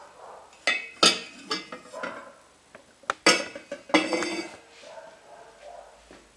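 A terracotta bowl and a brush knocking and clinking against a stainless-steel pot as the bowl is lifted out of its water bath. There are several sharp knocks with a metallic ring, the loudest about a second in and again about three seconds in, with quieter scraping and handling between.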